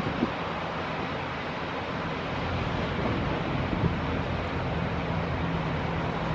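Steady outdoor background noise: an even hiss over a low rumble, unchanging throughout, of the kind made by wind, light rain and distant traffic together.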